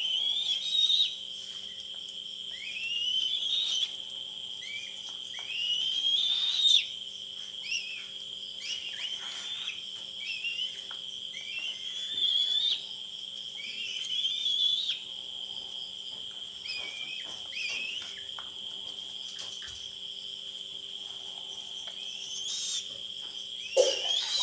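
Young eagle chick giving repeated short, rising whistled calls, about one every one to two seconds, typical of a chick begging for food. A steady high-pitched whine runs underneath.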